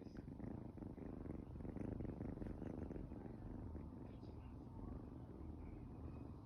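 An 8-week-old kitten purring steadily close to the microphone, a little louder about two seconds in.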